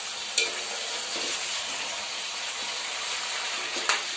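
Chicken pieces sizzling steadily as they fry in oil in a steel pot, cooking off the chicken's own water, while a steel spoon stirs them and clinks against the pot twice.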